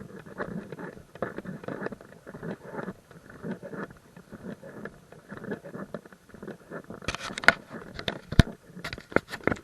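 Footsteps crunching along a hiking trail at walking pace, about one step every half to three-quarters of a second. From about seven seconds in, sharp clicks and crackles come in over them.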